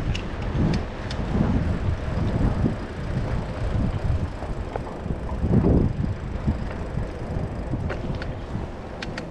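Wind buffeting the microphone of a moving bicycle, a gusty low rumble. A few faint ticks come through near the start and again near the end.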